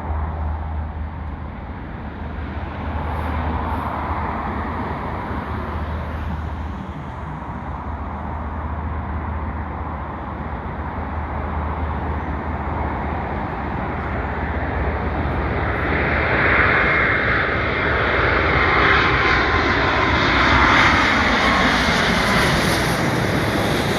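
Boeing 777-200 airliner's jet engines on landing approach: a steady roar that grows louder as the plane nears and is loudest in the last third, with whines falling in pitch as it passes.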